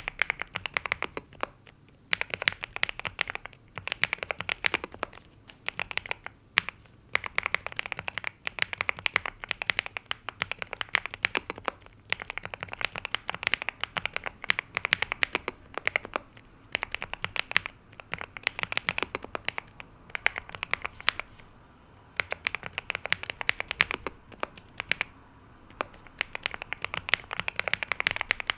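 Typing on a NuPhy Gem80 mechanical keyboard with NuPhy Mint linear switches and double-shot PBT mSA keycaps: fast runs of keystrokes in bursts of a few seconds with short pauses between them.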